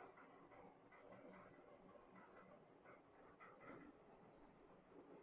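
Faint squeaking and scratching of a marker writing on a whiteboard, in many short strokes.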